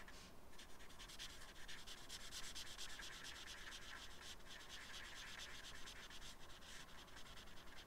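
Marker tip rubbing on paper in quick back-and-forth colouring strokes, faint and scratchy.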